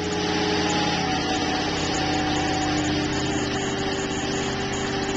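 LT1 V8 engine running steadily under load on an engine dynamometer, close to wide-open throttle.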